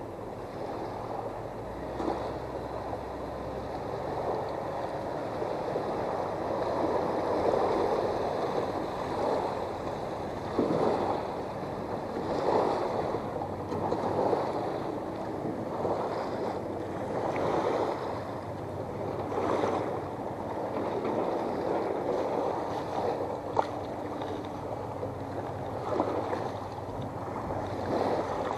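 Small waves lapping at a stony shoreline and against a beached small boat's hull, in irregular surges every second or two. A single sharp click comes late on.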